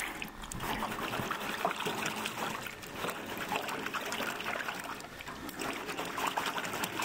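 Water trickling and splashing steadily.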